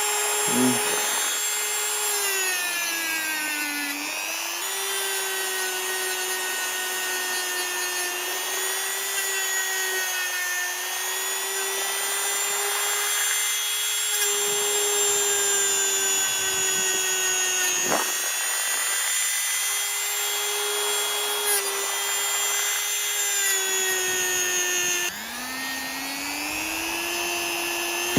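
Small electric rotary polishing tool running with a steady high whine as it polishes a steel watch clasp. Its pitch sags a few seconds in and recovers, as if pressed against the metal. Near the end it drops sharply and climbs back up.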